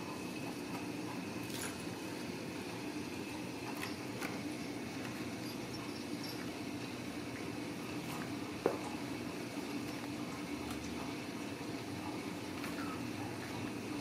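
Ragdoll kittens playing on cardboard scratcher pads on a tile floor: scattered soft taps and scratches over a steady low background hum, with one sharper knock a little past halfway.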